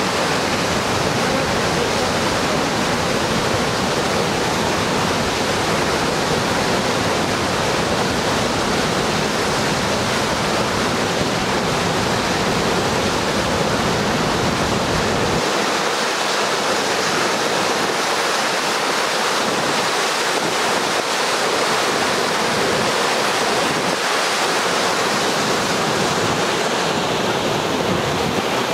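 Floodwater pouring over a low dam and rushing through an ice-choked river: a loud, steady roar of white water. A deep rumble underneath drops away about halfway through.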